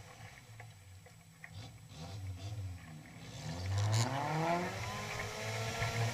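Engine of a modified 4x4 off-road vehicle, heard onboard, running low for the first few seconds, then revving up about halfway through with a rising pitch and holding at higher revs.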